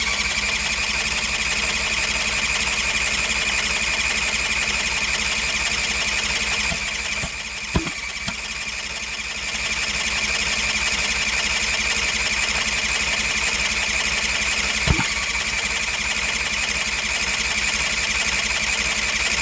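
Electric starter cranking a cold 20 hp Briggs & Stratton V-twin engine without it catching: a steady high whine over a fast, even chug of compression strokes. The engine will not fire, which the owner puts down to flooding.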